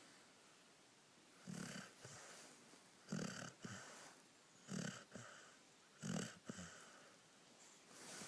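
Snoring in sleep: a short, rasping snore about every second and a half, four in all.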